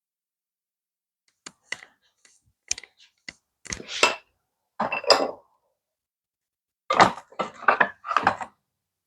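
Workshop handling sounds: a scattered series of short wooden knocks, clicks and brief scrapes as a board and the saw's fence are set up for a rip cut. No saw is running.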